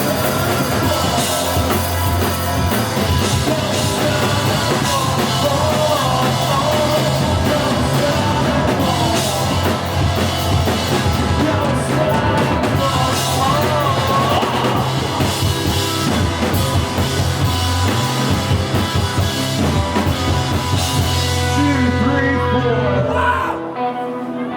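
Rock band playing loud, with drum kit and singing over a heavy, steady bass. The full band stops near the end, leaving a few held notes.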